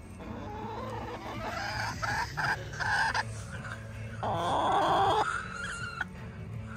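Hens clucking and squawking, with a louder, harsher call about four seconds in.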